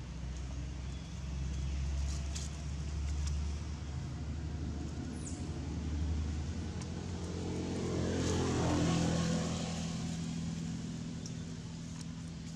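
A motor vehicle's engine running and passing by, with a steady low rumble that swells to its loudest about two-thirds of the way through, then fades.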